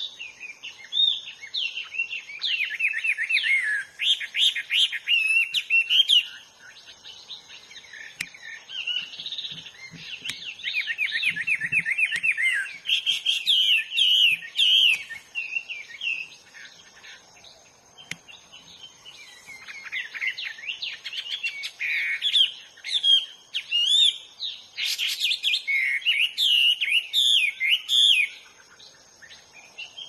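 Hwamei singing a varied song of rapid whistled phrases and trills, in three long bouts with short pauses between.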